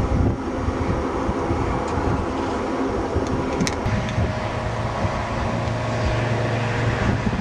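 Aircraft engines of a twin-engine airliner taking off and climbing away, a steady rumble with wind on the microphone. About four seconds in the sound changes to a steadier low drone with a faint thin whine over it.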